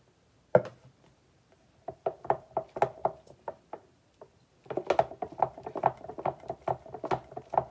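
A glass pitcher set down on a wooden board with one sharp knock, then a wooden spoon stirring mango mixture in the glass pitcher, clacking against its sides several times a second.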